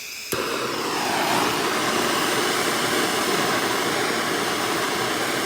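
TIG welding arc struck with a sharp crack about a third of a second in, then a steady hiss and buzz as the arc fusion-welds spring steel.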